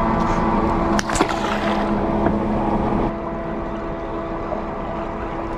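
Mercury outboard motor idling with a steady hum, with a sharp knock about a second in.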